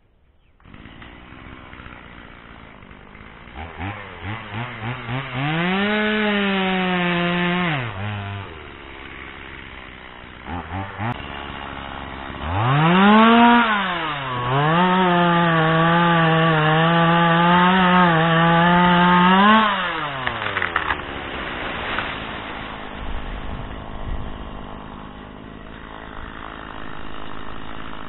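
Gasoline chainsaw idling and revved up twice: a short run of a few seconds, then a longer one of about eight seconds held at a steady pitch as it cuts into wood. Each time it drops back to idle afterwards.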